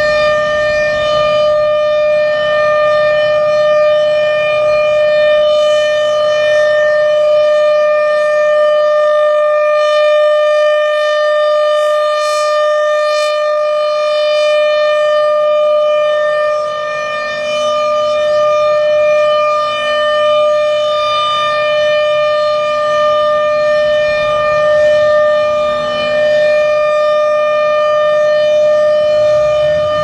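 Federal Thunderbolt 1000 outdoor warning siren sounding a steady single-pitched wail at full speed, its loudness swelling and dipping slightly as the rotating horn sweeps around.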